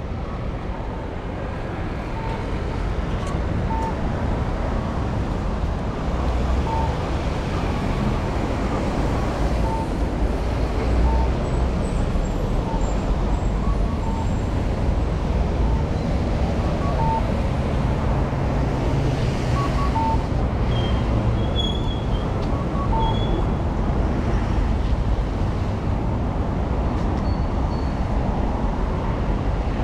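City street traffic on a wet road: a steady rumble and hiss of passing vehicles and tyres. A faint short beep repeats about every second and a half.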